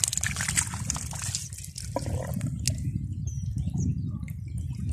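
Hand groping in wet mud and shallow muddy water: small splashes and squelches, busiest in the first second and a half and then thinning to scattered drips and clicks, over a steady low rumble.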